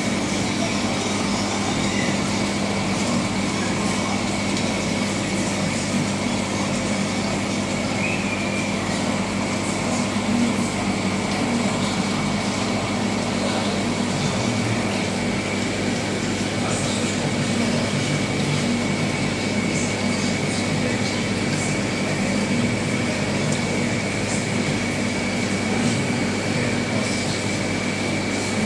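Steady mechanical hum and water noise of reef aquarium equipment, such as pumps and flow circulation, with a constant low drone and a thin high tone over it.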